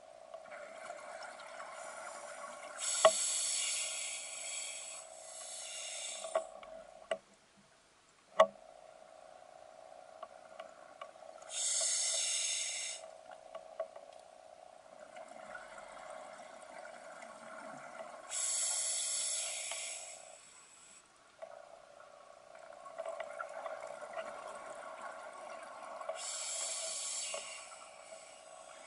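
Scuba diver's breathing through a regulator, picked up underwater: a burst of hissing, bubbling air about every seven seconds, each lasting a second or two, over a steady hum. Two sharp clicks stand out, a few seconds in and again about eight seconds in.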